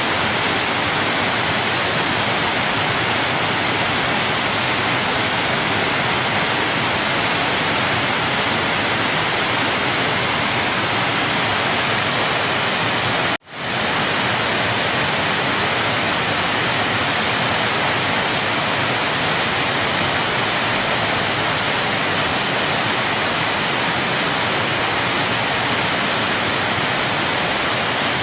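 Large waterfall: a steady, dense rush of falling water. It cuts out for an instant about halfway through, then comes straight back.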